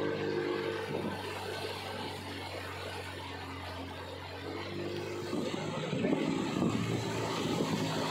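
Motorboat engine running steadily under way, over a haze of wind and water noise; the engine note grows louder and fuller about six seconds in.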